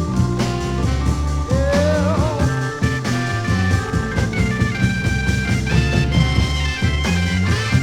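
Electric blues band playing an instrumental passage with steady bass and drums under held lead notes that step up and down, and one note bent and wavered about a second and a half in.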